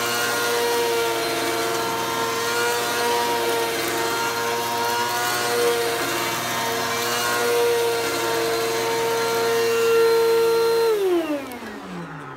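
Bagless upright vacuum cleaner running with a steady high motor whine as it is pushed over a shag rug, then switched off about eleven seconds in, its whine falling in pitch and fading as the motor spins down.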